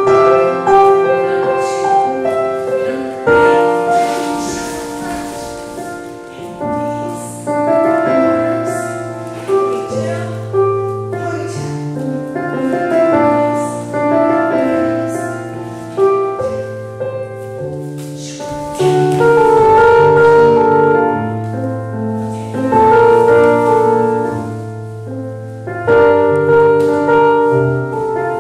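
Slow, gentle piano-led music, with struck piano notes over held bass notes.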